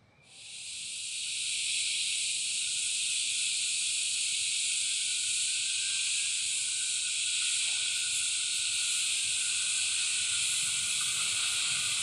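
Loud, steady shrill hiss of a cicada chorus in rainforest. It swells in over the first second or two and then holds unbroken.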